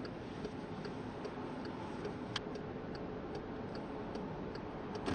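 A car's indicator relay ticking steadily inside the cabin, about two and a half ticks a second, over the low steady hum of the idling car.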